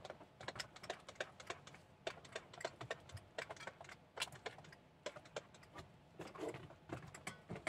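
Dry kibble clinking and rattling in stainless steel dog bowls as it is portioned out: a quick, irregular run of light clicks.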